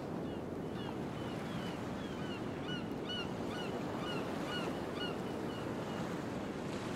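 Gulls calling in a quick run of short, downward-sliding cries, about three a second, over a steady wash of sea surf.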